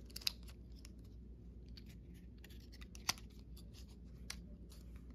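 Faint scattered clicks and crinkles of a paperboard packaging insert and its earphone cable being handled as wired Apple EarPods are unwound from it. Three sharper clicks stand out: just after the start, about three seconds in, and a second later.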